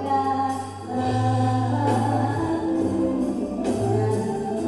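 A young girl singing into a microphone over band accompaniment, holding long notes in a clear voice.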